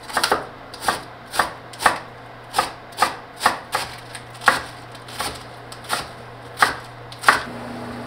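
Knife chopping on a cutting board: about fifteen slow, separate strokes, roughly two a second, with a faint steady hum underneath.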